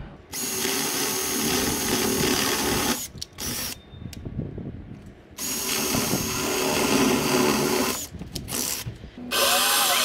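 Cordless drill boring through a wooden sheet, running in two long runs of about three seconds each with short bursts between them. Near the end a jigsaw starts cutting the sheet.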